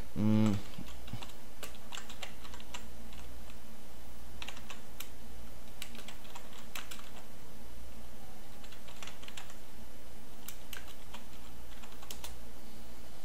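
Typing on a computer keyboard: irregular keystroke clicks, with a short voiced hum of a man's voice right at the start.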